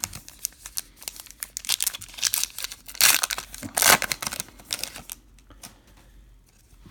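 Plastic-foil trading card pack wrapper crinkling and being torn open. The rustling is loudest about three to four seconds in and dies down to light handling near the end.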